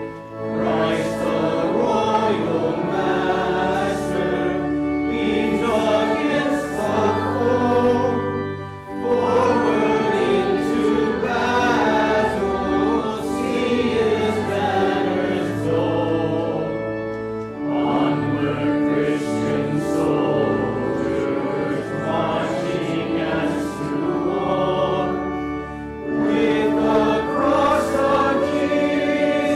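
Congregation singing a hymn together, with short breaks between phrases about nine and seventeen seconds in.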